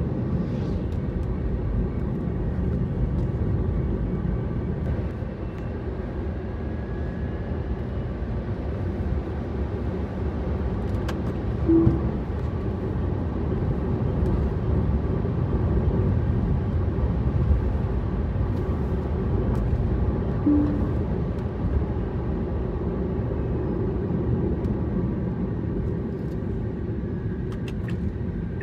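A car driving along at steady speed: an even rumble of tyres and engine. Two short tones sound, about 12 seconds and about 20 seconds in.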